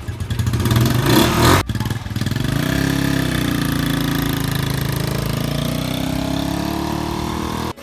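Motorcycle-sidecar (tricycle) engine running loud and close, briefly revved. After a short break the engine pulls away, its pitch dipping and then rising steadily as it accelerates.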